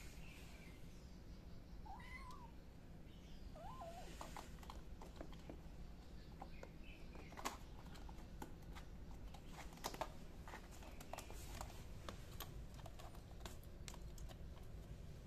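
A tiny kitten mewing a few short, thin mews, the clearest about two and four seconds in, with scattered light taps and scratches as it scrambles about on a fabric chair seat.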